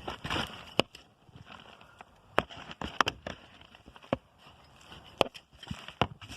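Garden trowel digging through potting soil in a pot: irregular sharp scrapes and knocks, about eight in all, spread unevenly.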